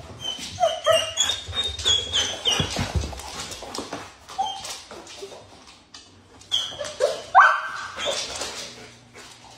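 Dogs whining and yelping in short, high-pitched calls that slide up and down, agitated at their owner lying on the floor after she yelled for help. A dull thump comes about three seconds in.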